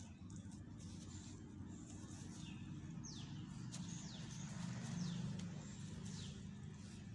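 Faint outdoor birdsong: several short, quickly falling chirps, over a low steady background rumble.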